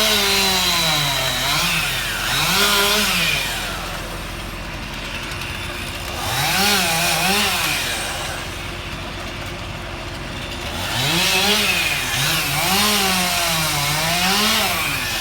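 Chainsaw engine revving up and dropping back in three spells of cutting, quieter between them, over a steady engine hum.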